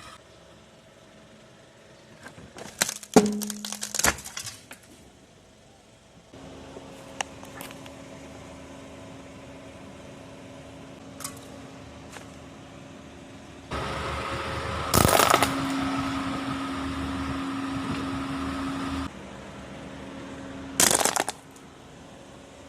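Plastic and glass cracking and snapping as a car tyre rolls over and crushes small electronic gadgets such as smartphones. There is a cluster of cracks a few seconds in, one loud crack midway and a short burst near the end, over a steady low hum that starts about six seconds in and grows louder in the middle.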